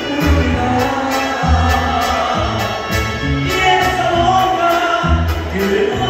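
Live Mexican regional band playing with a lead singer, over a heavy, steady bass beat.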